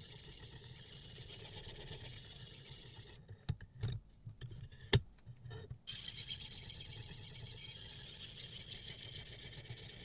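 Sped-up scraping hiss of a sharpening stone on a guided rod stroked rapidly along a kitchen knife's edge in a clamp-type sharpening system. About three seconds in the scraping stops for a couple of seconds of clicks and a sharp knock as the clamped knife is turned over, then the scraping starts again.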